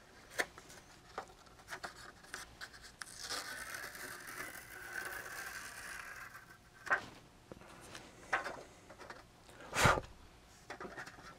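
Protective plastic film being peeled off a thin metal solder stencil: a rustle that lasts about three seconds. Then a few light taps and one sharper knock near the end as the stencil sheet is handled on the bench.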